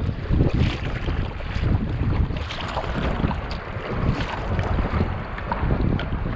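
Wind buffeting the microphone, with the splash of kayak paddle blades dipping and lifting on each stroke and water sloshing around the hull.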